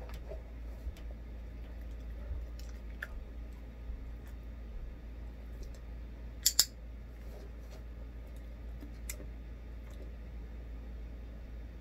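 Handheld dog-training clicker clicking once about six and a half seconds in, heard as a sharp double click from the press and release, marking the dog holding its chin in the hand. A few faint small ticks and a low steady hum sit underneath.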